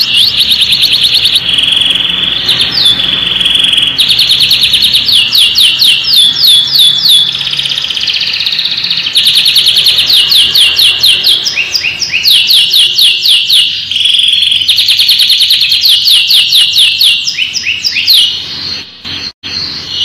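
Domestic canary singing: long rolling trills of fast repeated notes, broken by a few short held whistles. The song breaks off briefly near the end.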